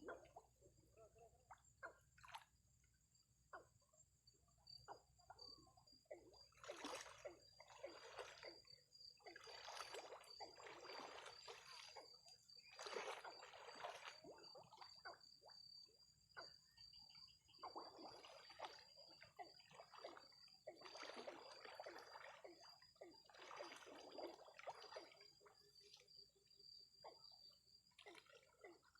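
Floodwater sloshing and splashing in irregular bursts, as someone wades and works in shallow water. A thin, steady, high tone runs underneath.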